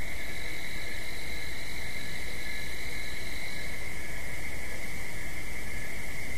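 A steady high-pitched tone held over an even hiss like static, with a fainter, higher tone that fades out about halfway through.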